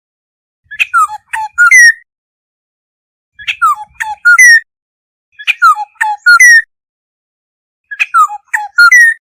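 Black-hooded oriole calling: a short phrase of several slurred, whistled notes, repeated four times about every two and a half seconds, with silence between.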